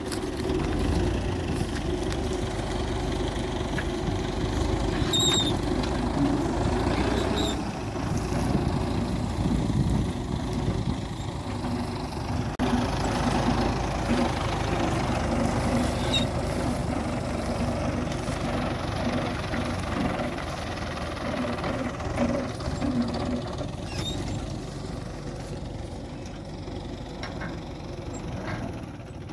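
Tractor diesel engine running steadily, with a few faint metallic clicks about five to eight seconds in.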